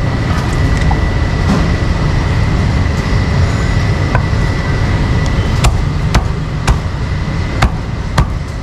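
Cleaver chopping meat on a chopping block: single sharp chops, spaced out, most of them in the second half, over a steady rumble of traffic and a thin steady high tone.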